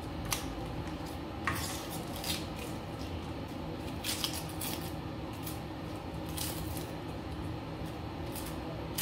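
Kitchen knife scraping and cutting the papery skin off an onion: a scattering of light scrapes and clicks every second or so over a steady low hum.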